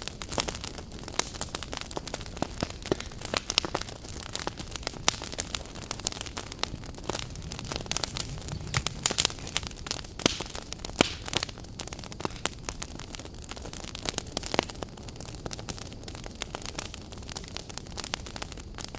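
Firewood burning in an agungi, a traditional Korean wood-fired hearth: a steady hiss of flame with frequent sharp, irregular crackles and pops.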